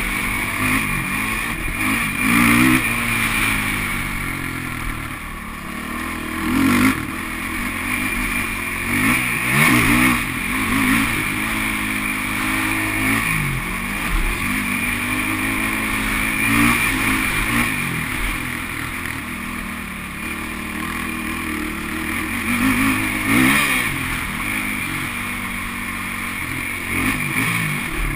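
Sport quad's engine revving, the pitch climbing and dropping over and over as the rider accelerates, shifts and backs off around a dirt motocross track.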